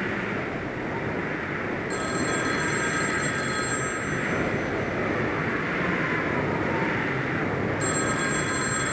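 Telephone ringing in two bursts, each about two seconds long and some six seconds apart, over a steady rushing noise: the recorded intro of the song on the soundtrack.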